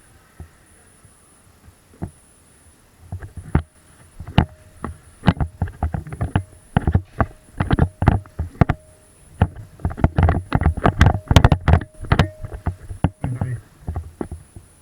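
Irregular sharp clacks and thumps of close-quarters airsoft play, starting about three seconds in and growing densest near the end.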